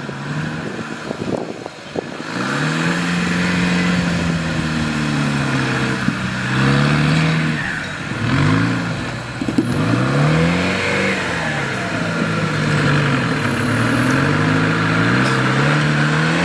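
Off-road jeep's engine revving hard under load, its pitch repeatedly rising and falling as it climbs rough, rutted ground. It grows louder about two seconds in.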